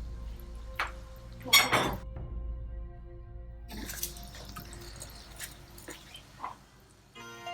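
Hot oil sizzling in a wok as fried bread croissants are lifted out, with a few utensil clicks and one loud knock about one and a half seconds in. Soft background music runs underneath and comes up fuller near the end.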